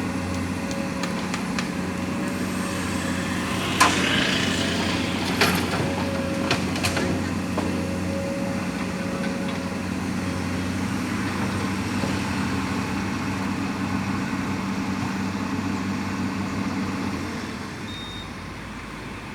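Heavy diesel engine of mining earthmoving machinery running steadily, with a few sharp bangs about four to seven seconds in. The engine sound drops away near the end.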